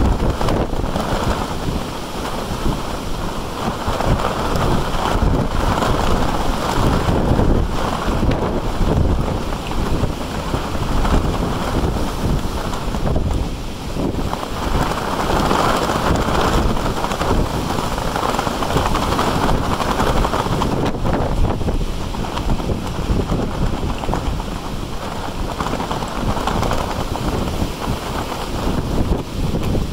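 Strong gusting wind buffeting the microphone: a loud, steady noise that swells and eases with the gusts.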